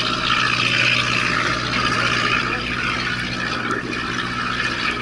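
Small fishing boat's engine running steadily: a low, even hum with a steady hiss over it.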